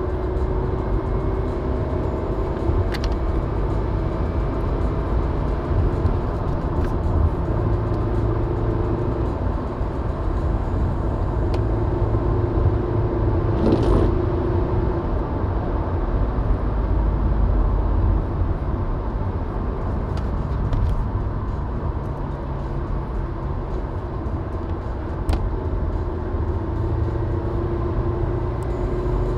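Car driving on a rain-wet road: steady engine and tyre rumble with a faint engine tone that drifts a little in pitch, and a few short sharp clicks.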